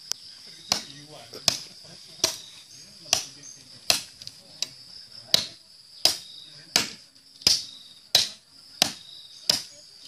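A large SUP9A spring-steel knife chopping into a wooden plank, about a dozen sharp strikes at a steady pace of roughly one every 0.7 seconds. A steady high insect trill runs behind it.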